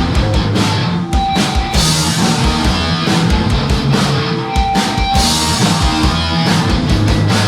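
A rock band playing live with electric guitar, bass and drum kit at a steady driving beat, with no vocals.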